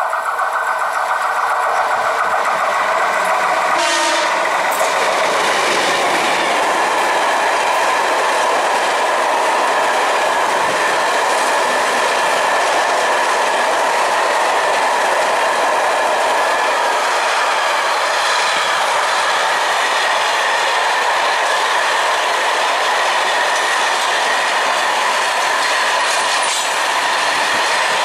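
Freight train hauled by an MLW diesel locomotive passing close by. It builds up as the train arrives, then tank wagons and flat wagons roll past with steady wheel-on-rail noise and clickety-clack over the rail joints.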